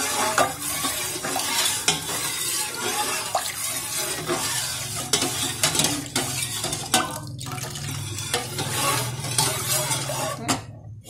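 Metal ladle stirring agar liquid in an aluminium pot, scraping and clinking against the pot's bottom and sides with many sharp clicks over a steady low hum. The liquid is being stirred continuously as it heats so the agar does not stick to the bottom. The stirring stops just before the end.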